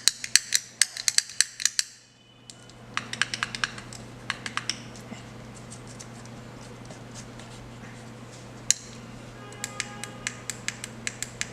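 Buttons on a fidget cube being pressed, giving runs of sharp clicks. The clicks come in quick bursts with a pause near the start, a single click in the middle, and a steady low hum underneath.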